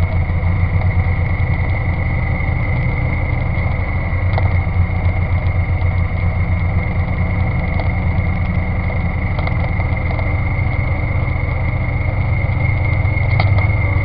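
Engine running steadily at idle: a low pulsing rumble with a constant high-pitched whine above it and a few faint ticks. This is the abnormal noise (異音) recorded from the '650'.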